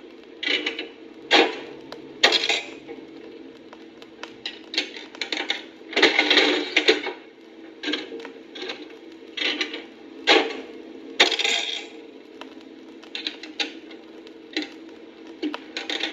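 Coin-operated café machines working: irregular mechanical clicks and clattering over a steady hum.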